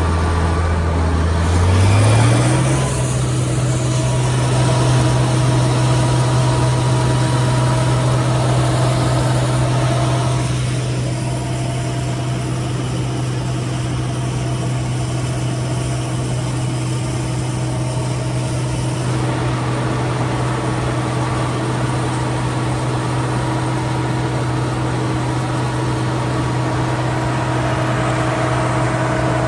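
Case 2388 combine's diesel engine rising in pitch about two seconds in as it speeds up, then running steadily at working speed.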